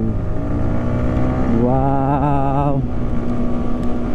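Yamaha R15 V3 motorcycle's single-cylinder engine droning steadily while riding at highway speed, with rushing wind on the microphone. About two seconds in, a wavering pitched tone sounds over it for about a second.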